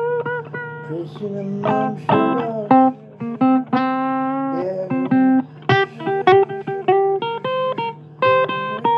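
Blues guitar music: single plucked notes and short runs, some notes held and ringing, over a steady low hum.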